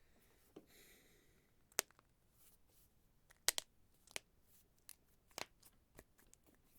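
A handful of isolated key presses on an ErgoDox keyboard with Cherry MX Red switches and DSA keycaps: about eight sharp clicks at irregular, slow spacing, well below typing pace. There is a faint rustle about half a second in.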